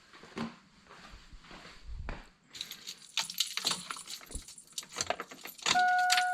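A bunch of keys jangling and clicking, then near the end a steady electronic warning chime from the truck's dash starts up as the ignition key goes in.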